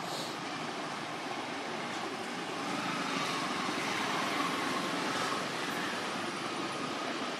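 A steady outdoor background drone, like a distant engine, swelling a little about three seconds in, with a faint hum that drifts slightly in pitch.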